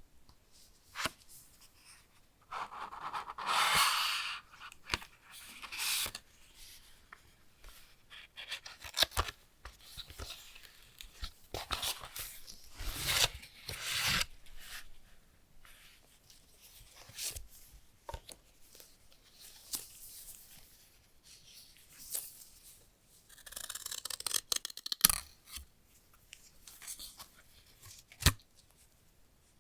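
Hands handling a smartphone's retail box and packaging: intermittent tearing, rustling and scraping of paper, plastic and cardboard, broken by sharp clicks and taps.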